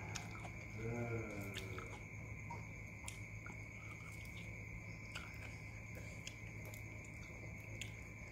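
Close-up biting and chewing of a boiled chicken foot, heard as scattered small wet clicks and smacks. A short voiced hum about a second in, over a steady background hum.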